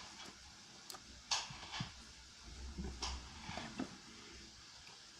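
Faint handling noises: a few scattered light clicks and taps, likely from a spoon and containers used while making slime, with a brief low rumble near the middle.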